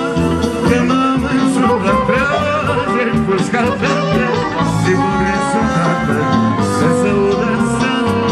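Live wedding band music played loud, with brass such as trumpet and saxophone, and a man singing through a microphone over it.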